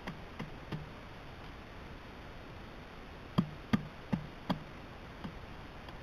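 Pileated woodpecker striking a decaying log with its bill, digging into the wood for carpenter ants: sharp woody knocks, three lighter ones at the start, then four heavier ones about a third of a second apart midway, and one last faint knock.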